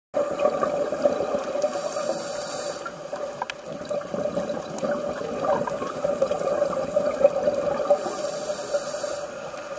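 Underwater sound heard through a dive camera housing: a steady hum with scattered clicks and crackle, and a high hiss that comes twice, about six seconds apart.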